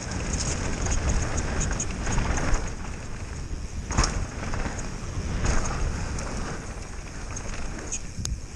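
Downhill mountain bike descending a dirt trail at speed: tyres rolling over the dirt and wind buffeting the microphone, with the bike rattling and clicking over bumps and a hard knock about four seconds in.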